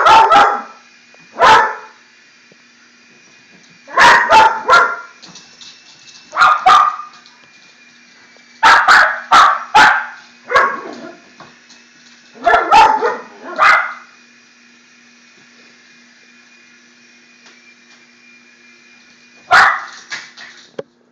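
Pet dogs barking in repeated bursts of one to four barks with pauses between, excited by a toy helicopter. A faint steady high whine, the small helicopter's motor, runs under the barking and stops near the end.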